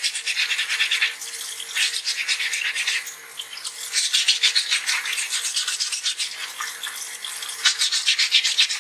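Waterproof 220-grit sandpaper, wet, rubbed by hand over a stone dental model: rapid back-and-forth scratchy strokes, louder in spells.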